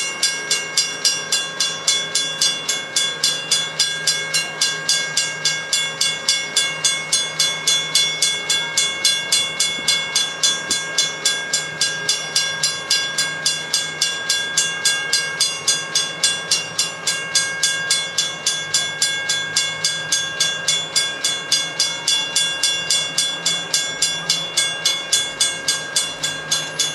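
Railroad grade-crossing bell ringing steadily, about three strikes a second, each strike ringing on briefly, over a low steady hum.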